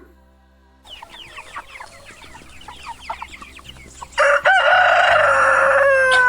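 Chickens clucking in quick, short falling notes, then about four seconds in a rooster crows loudly: one long call that drops in pitch at the end.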